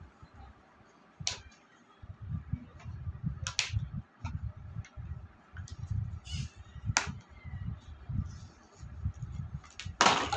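Plastic blister packaging of a toy fruit-cutting set being handled and pressed by fingers: a few sharp plastic clicks and crackles, the loudest near the end, over dull low knocks and rubbing against the card and table.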